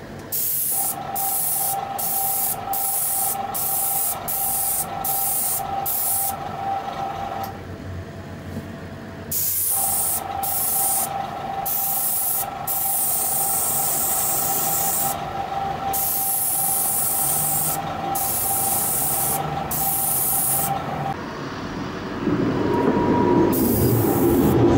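Airbrush spraying yellow paint onto a diecast model car body, its air hissing in many short bursts as the trigger is pressed and released. A steady mechanical hum runs beneath, and a louder low rumble joins near the end.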